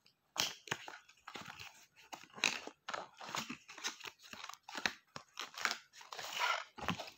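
A small glossy cardboard box being opened by hand: its top flap pulled and worked loose, giving irregular crinkling, scraping and tearing noises of card and packaging.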